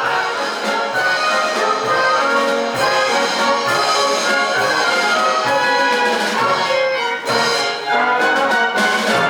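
Brass band music with a steady beat, trombones and trumpets playing in a German beer-hall style.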